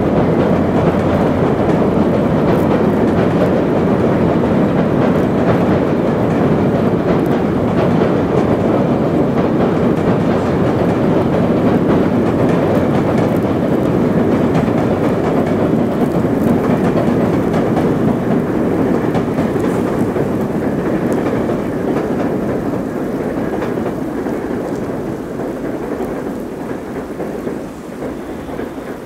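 VIA Rail's The Canadian passenger train rolling across a trestle bridge: a steady, heavy rumble that slowly fades over the last ten seconds or so as the train moves away.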